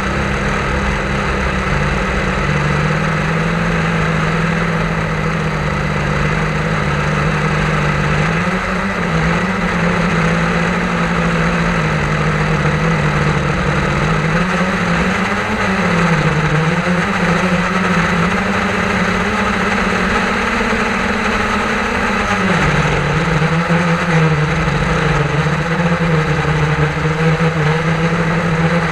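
A drone's electric motors and propellers buzzing steadily in flight, the pitch rising and falling slightly every few seconds as the motors change speed.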